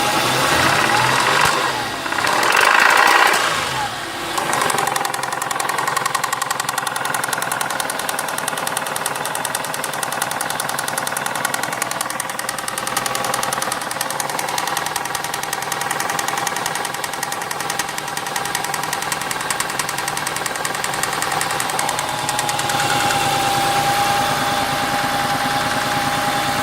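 Ford Mondeo ST220's 3.0 V6 24-valve engine idling with a knocking noise, revved once about two seconds in, the pitch rising and falling back to idle.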